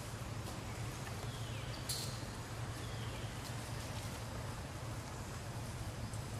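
Outdoor ambience: a steady low hum with scattered faint clicks and rustles, one sharper click just before two seconds in, and two faint high falling squeaks, one about a second and a half in and one about three seconds in.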